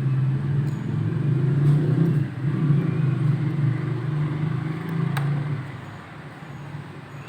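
A motor vehicle engine running, low-pitched and wavering, dying away about six seconds in, with one sharp click a little before that.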